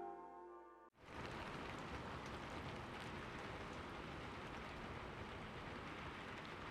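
The tail of a music track fades, then about a second in a steady hiss of falling water starts abruptly and runs on evenly.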